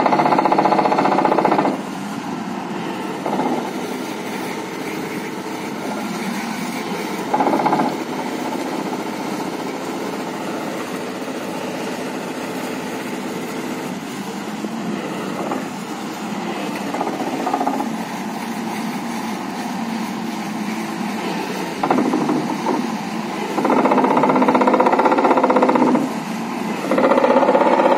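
Excavator-mounted hydraulic vibratory pile driver driving a pile into sand: a steady, loud buzzing drone mixed with the excavator's engine. It swells louder in spells at the start, briefly about a third of the way in, and twice near the end.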